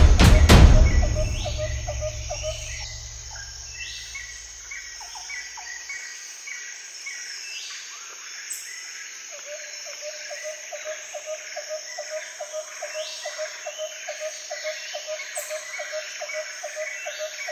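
Drum-driven music ends about a second in, its low rumble fading away over the next few seconds. After that comes woodland ambience: insects buzzing steadily, birds chirping, and from about nine seconds in a call repeating about three times a second.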